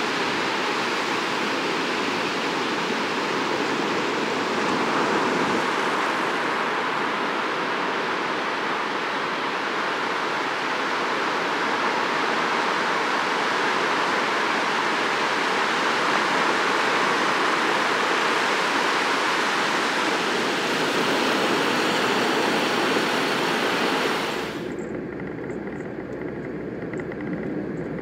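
Ocean surf washing onto a wide sandy beach: a steady rushing noise. Near the end it cuts off suddenly, leaving a quieter low rumble.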